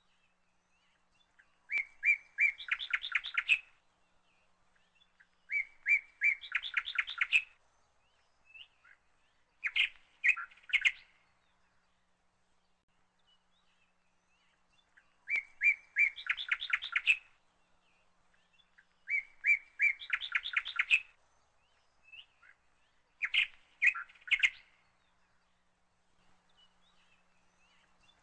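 A bird singing the same short song phrase six times, a few notes followed by a quick run of notes, each phrase lasting under two seconds with a few seconds' pause between.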